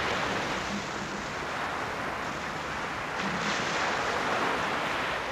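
Surf washing onto a sandy beach: a steady rush of breaking water that swells a little past halfway.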